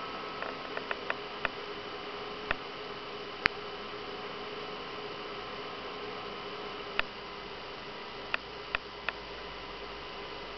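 BenQ W500 projector's cooling fan running steadily, a hiss with a faint hum. Sharp clicks break over it: a quick run of about five in the first second and a half, single clicks a few seconds apart, and three close together near the end.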